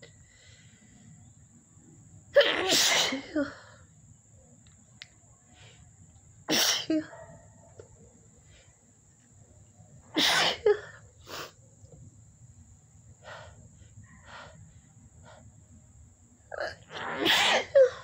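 A woman sneezing loudly four times in a row, about four seconds apart, in a sneezing fit set off by dust, into a cloth held to her nose.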